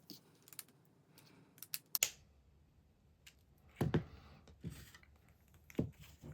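Small screws, washers and plastic kit parts being handled and fitted by hand: scattered light clicks and taps, with a quick cluster about two seconds in and louder knocks about four and six seconds in.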